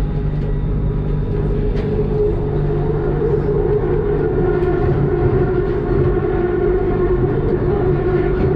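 BTS Skytrain electric train running: a steady rumble with a humming electric whine, its pitch rising slightly about three seconds in.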